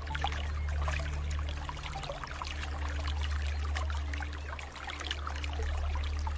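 Running water trickling and splashing, a dense crackle of small drops and bubbles. Beneath it runs a low steady drone that shifts pitch a couple of times.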